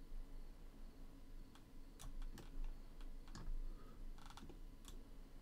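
Faint, irregular clicking of a computer keyboard and mouse, a few scattered clicks and a quick cluster near the end, over a low steady hum.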